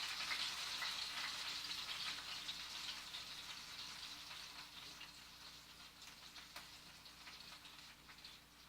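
Chicken thighs frying in a hot pan: a crackling sizzle with scattered sharp pops that gradually dies down.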